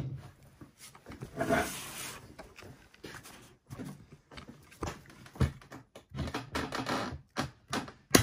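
Snapping tool slid onto and levered against an Ultion 3* Diamond euro cylinder held in a vise: scraping and small metal knocks, then one sharp crack near the end as the cylinder snaps, breaking beyond its anti-snap line.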